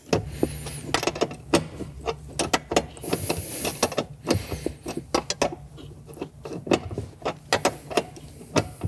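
A man breathing heavily as he strains at a stuck seat-rail bolt, with irregular clicks and knocks from tool and metal throughout.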